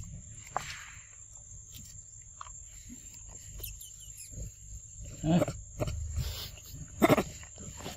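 Monkey sounds: light clicks and crinkles as a juice carton is handled at the mouth, then short low monkey calls about five seconds in and again about seven seconds in.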